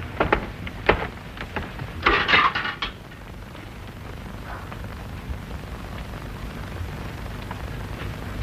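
A few footsteps and knocks, then a short clatter as the épées are handled, followed by the steady hiss and hum of an old film soundtrack.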